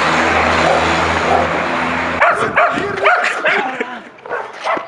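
A dog barking and yipping repeatedly from about two seconds in. Before that, a steady rumbling noise with a low hum stops abruptly.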